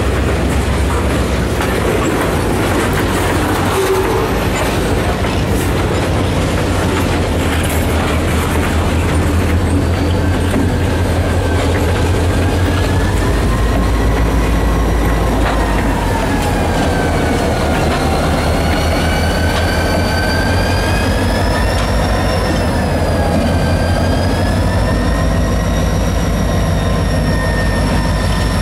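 Freight train cars rolling past with a steady heavy rumble and wheels clacking over the rail joints. After about ten seconds a high, wavering squeal of steel wheel flanges grinding on the rail sets in, swelling and sagging in pitch and growing stronger toward the end.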